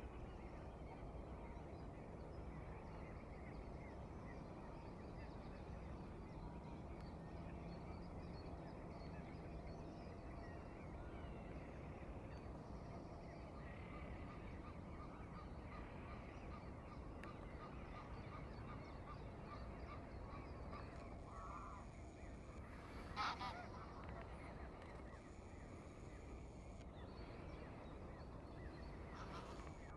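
Flock of greylag geese honking and calling softly and on and off, with one louder honk about two-thirds of the way through, over a steady low background hum.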